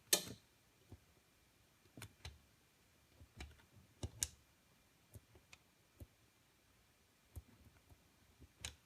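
Sparse light clicks and key taps, a dozen or so spread irregularly through otherwise quiet room tone, as a computer keyboard and mouse are worked.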